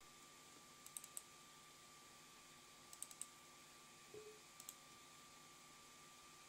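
Computer mouse clicked in short quick groups: a few clicks about a second in, a few more about three seconds in, and a double-click near five seconds, over a faint steady tone.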